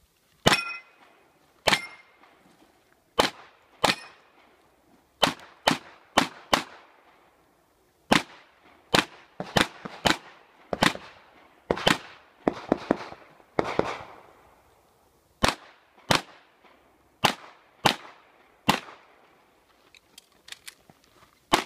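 Handgun shots from a Tanfoglio pistol fired through a practical-shooting course of fire: about twenty sharp cracks, some single and some in quick pairs, with short pauses between groups.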